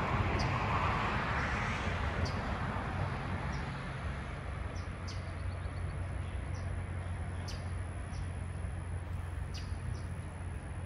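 MARTA rapid-transit train receding, its rumble fading over the first few seconds into a steady low background hum. Short bird chirps come every second or so over it.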